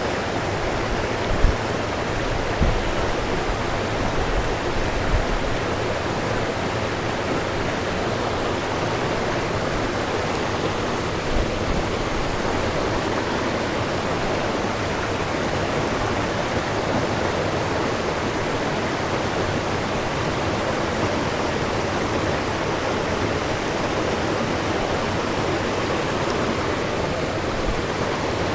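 Steady rushing of a fast-flowing stream over rapids, with a few soft low thumps in the first dozen seconds.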